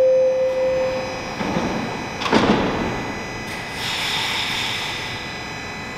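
A Toronto Rocket subway train's door chime ends on a held tone about a second in. The sliding doors then close with a sharp thud about two and a half seconds in, and a hiss follows.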